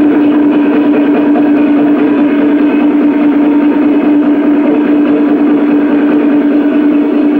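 Peking opera martial-scene accompaniment: a loud, continuous din of clashing cymbals and gongs over one steady held note.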